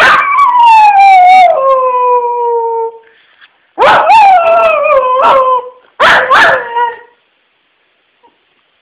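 Dog howling: one long howl that slides down in pitch, then two shorter howls, ending about seven seconds in.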